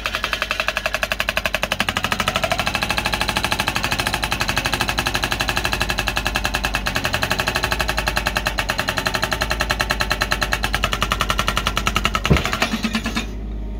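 Excavator-mounted hydraulic breaker hammering a chisel into buried rock and bedrock, a rapid, even stream of blows. It stops shortly before the end with one harder knock.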